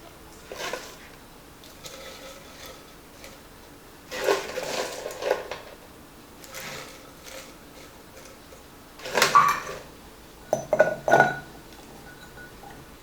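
Weck glass storage jars being handled and set down, in a few separate bursts of clinking and knocking; a double clink near the end leaves a brief glassy ring.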